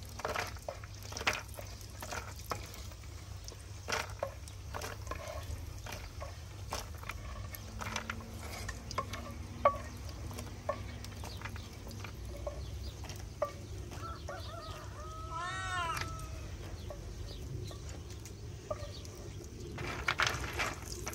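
Scattered light clicks and knocks over a low steady rumble, with one short rising-and-falling animal call about fifteen seconds in.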